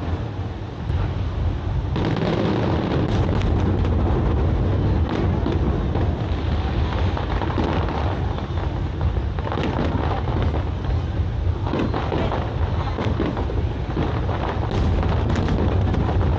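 Aerial fireworks going off in a dense, continuous barrage of deep booms and sharp bangs, growing heavier about two seconds in.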